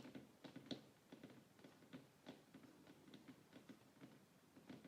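Faint, close-miked ASMR sounds: soft, irregular clicks and taps, a few each second.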